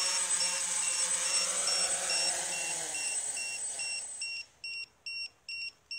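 DJI F550 hexacopter's six motors and propellers winding down in pitch as it lands, dying away about four seconds in. Under the motors and then on its own, an electronic beeper sounds short high pips about two and a half times a second.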